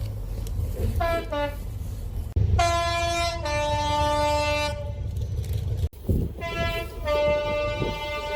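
Two-tone train horn sounded high note then low note: a quick toot, then a longer high-low blast, and after a sudden break another high-low blast. A low rumble from the train runs underneath.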